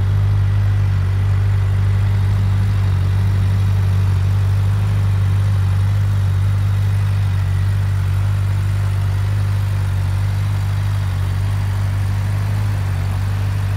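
2016 Suzuki GSX-R600's inline four-cylinder engine idling steadily.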